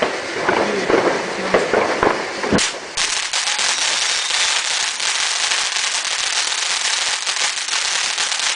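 Ground fountain firework spraying sparks with crackling. A sharp pop about two and a half seconds in, then a dense, continuous crackle for the rest.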